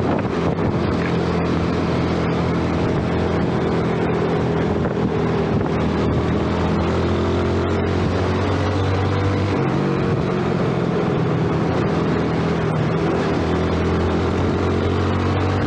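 A 2012 Yamaha underbone motorcycle's engine running at a steady cruise, heard from the rider's seat with wind noise on the microphone. The engine note shifts slowly in pitch and eases off for a moment about ten seconds in before picking up again.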